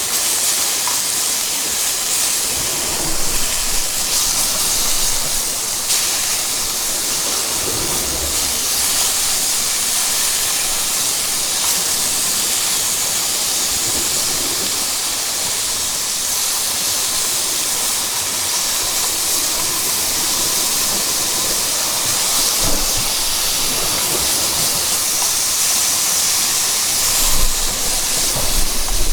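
Steady loud rushing hiss of wind on an outdoor microphone, with a few brief low rumbles of gusts buffeting it.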